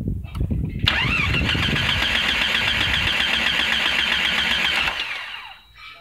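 The Jeep Grand Cherokee's 4.0-litre straight-six is cranked over on the starter motor for about four seconds with a fast, even pulse, and stops just after five seconds in without the engine firing. This is a crank-no-start: the computer is not switching on the ASD relay during cranking, so the coil and injectors get no power.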